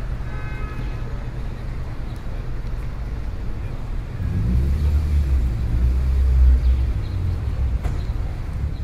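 Bus engine and road noise heard inside the cabin: a steady low rumble that grows louder from about four and a half seconds in and eases off again near the end.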